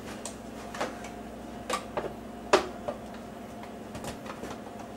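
Irregular clicks and knocks from a home soda maker and its bottle being handled and fitted back into place, about five in all, the sharpest about halfway through, over a steady low hum.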